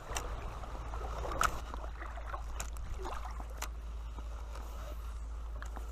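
Creek water running steadily, with a low wind rumble on the microphone. A few short sharp clicks and taps come through, the loudest about a second and a half in.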